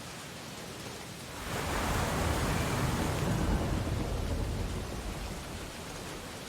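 Ocean surf on a beach: a steady wash of water, with one wave breaking and swelling louder about a second and a half in, then subsiding.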